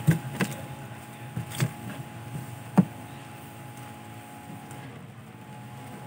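Handling noise from washing-machine wiring and a plastic-wrapped part: a few sharp clicks and knocks in the first three seconds, the loudest near the three-second mark, over a steady low hum.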